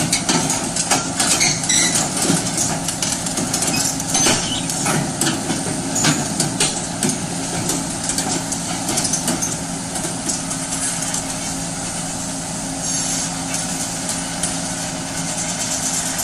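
Komatsu crawler excavator's diesel engine running steadily as the machine tracks down off a flatbed trailer, with sharp metallic knocks and clanks from its steel tracks through the first seven seconds or so, smoothing out later.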